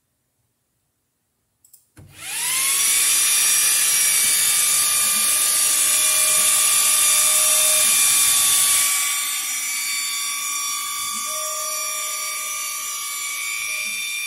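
xTool D1 Pro diode laser engraver running a frame. A steady high motor whine starts with a quick rise in pitch about two seconds in, and a second, lower tone comes and goes twice as the head traces the outline. The whine is louder in the first half.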